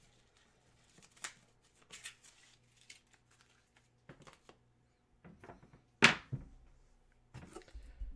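Hands unpacking and handling packaged memorabilia and cards: scattered light clicks and rustles of plastic and cardboard, with one sharp, loud snap about six seconds in.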